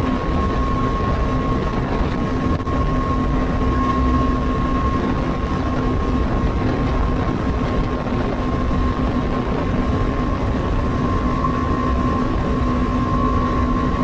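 Bajaj Dominar 250's single-cylinder engine through its stock exhaust, holding a steady note while cruising at constant speed, under a rush of wind and road noise.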